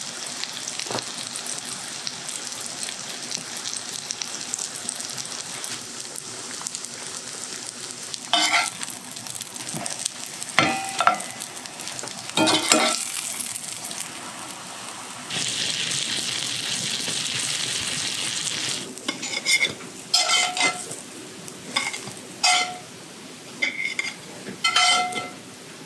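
Puffball mushroom slices sizzling steadily in butter and avocado oil in a cast-iron skillet, with a metal spatula scraping and knocking against the pan as the pieces are turned. The sizzle grows louder a little past the middle. In the last few seconds there are short ringing clinks of the spatula on a ceramic plate.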